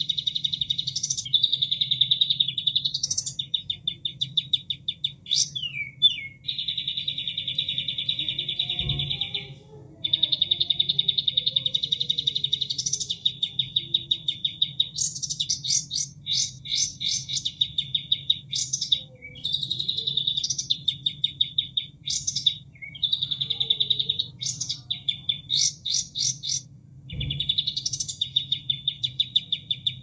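Recorded song of a kapas tembak played as a bird-training track: long, fast trills of rapidly repeated high notes broken by quick rising and falling whistled sweeps. Beneath it runs a low, steady rush of water, with two dull thumps, one about a third of the way in and one near the end.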